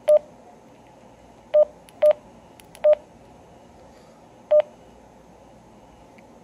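Keypad beeps from a TYT MD-2017 DMR handheld radio as its menu buttons are pressed. There are five short beeps, all at the same pitch and unevenly spaced, with a gap of about a second and a half before the last one.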